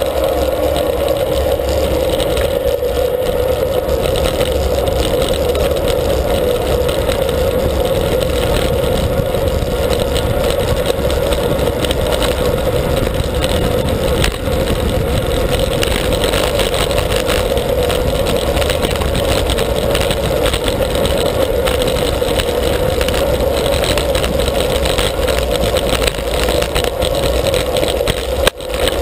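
Steady wind and road rumble on a bicycle-mounted action camera while riding, a constant rushing noise with a hum-like band in the middle, easing briefly near the end.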